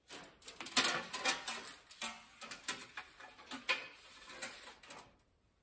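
Sheet-metal stove pipe being turned and handled on a metal workbench while it is marked for cutting: a run of irregular light scrapes, taps and rattles that stops about five seconds in.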